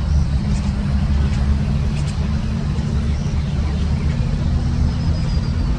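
A large engine running steadily, a low rumble with a steady hum under it.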